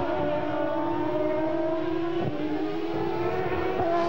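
Engines of 1994 Formula One race cars running at high revs on track: a steady high-pitched wail whose pitch drifts slowly down and back up.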